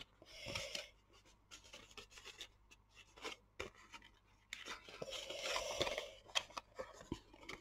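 Cardstock pillow box being folded by hand: faint rustling and scraping of the card, with a few light clicks, loudest from about five to six seconds in.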